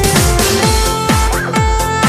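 Electronic dance music with a steady kick-drum beat under held synth notes.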